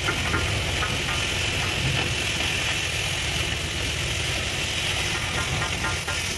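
Oxy-fuel cutting torch hissing steadily as it cuts a hole through a steel plate, over a low steady rumble.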